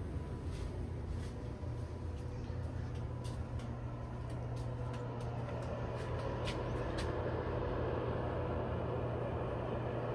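A steady low hum, with scattered light clicks of footsteps as someone walks.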